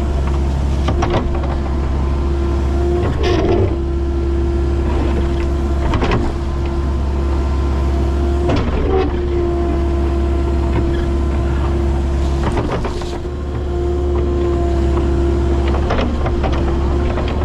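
Excavating machine's engine running steadily with a constant whine, broken every few seconds by sharp metallic clanks and knocks.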